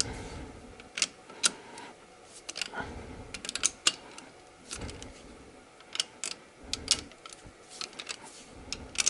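Ratchet wrench clicking in short runs, with metal clinks of the socket, as cylinder head bolts are loosened a quarter turn at a time. There are a few dull handling knocks between the runs of clicks.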